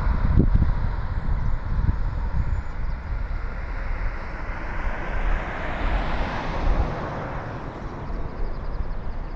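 Wind rumbling on the microphone, with road traffic passing; one car's tyre noise swells and fades about five to seven seconds in.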